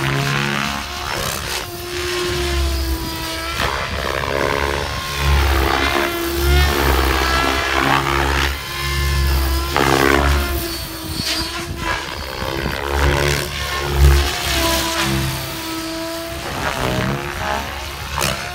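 Mikado Logo 700 electric RC helicopter flying aerobatics: rotor blades whooshing over a low rotor drone, with a motor and drivetrain whine that repeatedly rises and falls in pitch.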